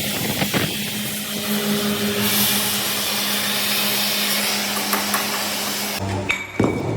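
Steady hissing noise with a low hum from metalworking equipment on a heavy-machine pin sleeve job, growing louder about two seconds in and cutting off suddenly about six seconds in, followed by a single sharp knock.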